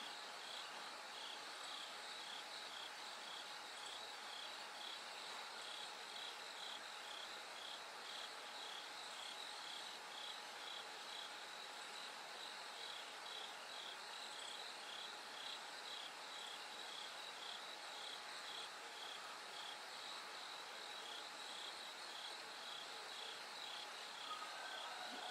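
Bell crickets singing: a chorus of high, ringing chirps repeating about twice a second over a steady high insect trill.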